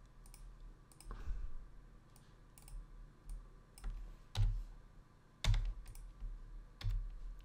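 Irregular clicks of a computer mouse and keyboard as points are selected and tools switched, with a couple of louder clicks about four and five seconds in.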